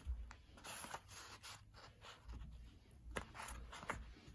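Soft rustling and crinkling of a sheet of colour paper being folded over and pressed flat by hand, with a few sharper crackles.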